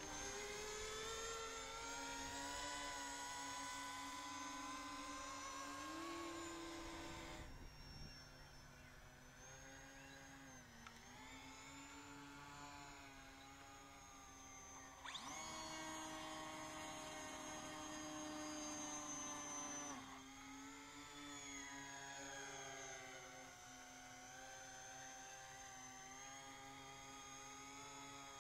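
Electric motors and propellers of an E-flite Convergence VTOL RC plane whining in flight, their pitch sliding up and down with the throttle. The sound jumps abruptly in pitch and level about 7 s, 15 s and 20 s in.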